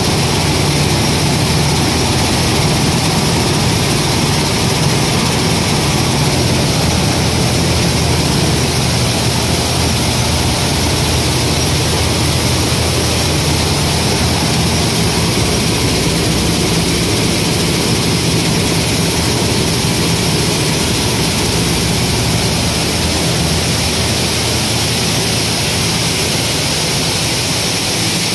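Grain destoner and cleaning machine running steadily: a constant low hum under a broad, even rushing noise.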